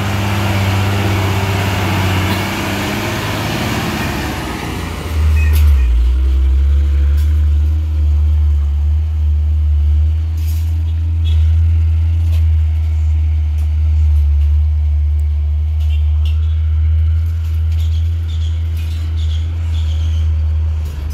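Hino dump truck's diesel engine running as it passes close by and pulls away. About five seconds in, a louder steady low rumble sets in, with scattered faint clicks over it.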